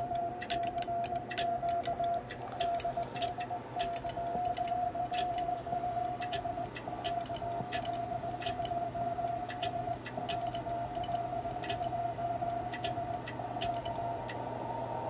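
Morse code sidetone from a Yaesu FTDX101D transceiver: a single steady beep keyed on and off in dots and dashes as a CQ call is sent in CW. Sharp mechanical clicks of the keying run alongside it over a steady low hum. The keying stops about a second before the end, and receiver hiss rises.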